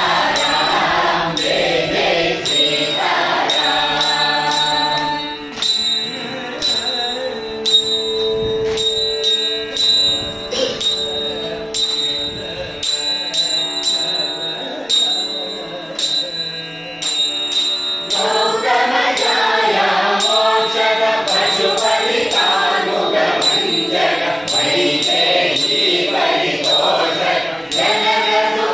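A group of women singing a devotional song together in unison at a rehearsal, kept in time by a steady clicking beat. For a stretch in the middle the sound thins to long held notes, which men's voices carry, before the full group singing returns.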